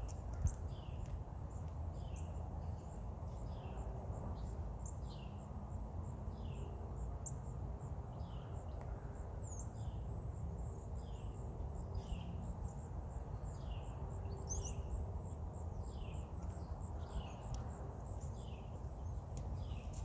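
A bird repeating a short falling chirp about once a second, over a steady low rumble of wind or handling noise.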